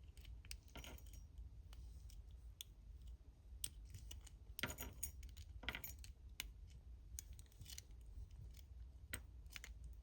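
Lock pick working in the keyway of a padlock: faint, scattered metallic clicks, with a few short scraping sounds about a second in and again near the middle.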